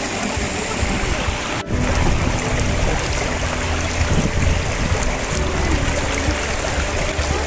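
Shallow rocky stream rushing and splashing over stones, a steady wash of water close to the microphone. It cuts out for an instant about one and a half seconds in.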